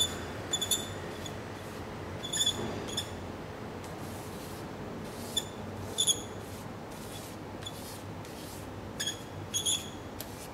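Frottage rubbing: short, scratchy, squeaking strokes of a drawing stick across paper pressed against a wall, in small clusters a few seconds apart, over a steady background hum.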